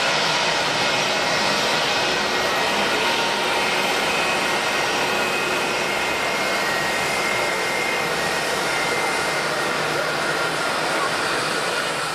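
Jet airliner engines running: a steady rush of noise carrying several high whining tones that drift slightly in pitch.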